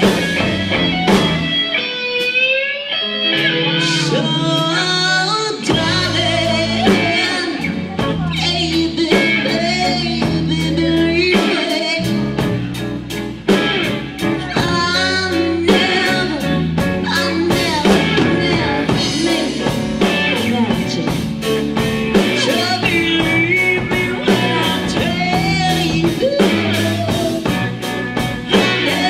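Band playing blues-rock: guitar with bending notes over drums keeping a steady beat.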